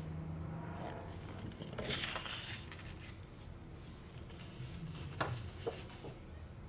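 Sheets of patterned scrapbook paper rustling and sliding as they are handled and laid down on a stack, with two light taps late on.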